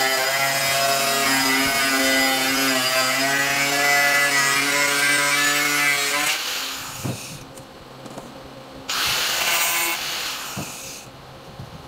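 Handheld angle grinder with a cutting disc slicing through an aluminium sheet: a steady motor whine with a cutting hiss for about six seconds, then it fades as the cut ends. About nine seconds in the grinder runs again for a couple of seconds.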